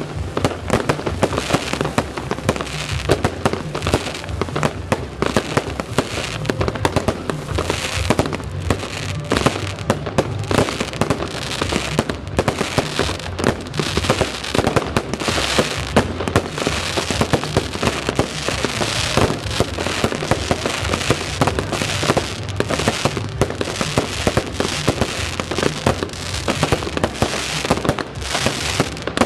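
Aerial fireworks barrage: a dense, unbroken run of bangs from bursting shells, with crackling sparks mixed in.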